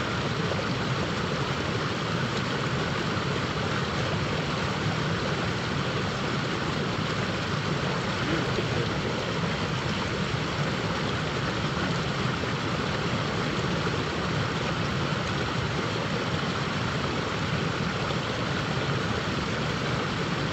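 River water rushing steadily over a rocky riffle, an even, unbroken wash of noise.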